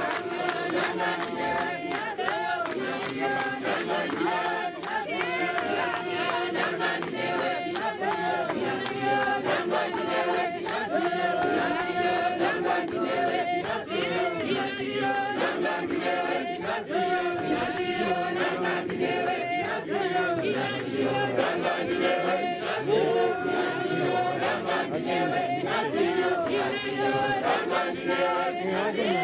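A large congregation of men and women singing a hymn together, unaccompanied, in a full steady chorus.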